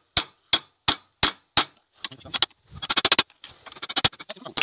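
Hammer blows on a screwdriver held against a rusted steel tube fitting, knocking at a seized, corroded joint: five sharp metallic strikes about three a second, then a quick run of lighter clinks about three seconds in.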